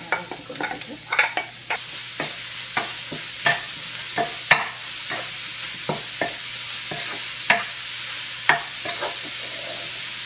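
Wooden spatula stirring chopped kale and grated coconut in a hot nonstick pan, with a steady sizzle of frying. Irregular clicks and scrapes come as the spatula knocks against the pan, and the sizzle grows steadier about two seconds in.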